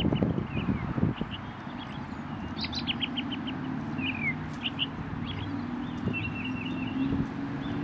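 Small songbirds chirping and twittering in quick runs of short notes and falling slurs, over a steady low hum. A few knocks sound in the first second.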